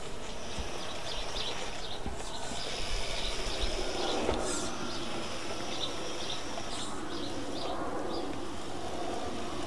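Motor and gears of a 1/8-scale Mad Torque RC rock crawler whirring as it drives slowly, swelling and easing as the throttle changes.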